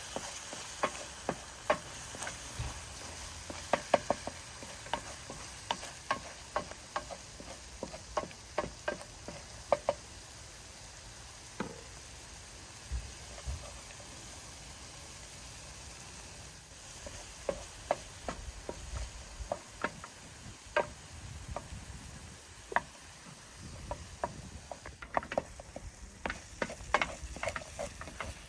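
Food sizzling in a frying pan while a utensil stirs it, with frequent irregular taps and scrapes against the pan over a steady sizzle; the tapping eases off for a few seconds about halfway through.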